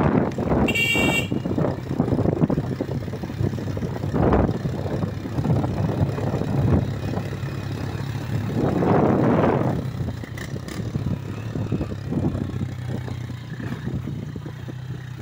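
Motorcycle engine running steadily on a dirt mountain track, with irregular surges of wind and road noise on the microphone. A brief high-pitched tone sounds about a second in.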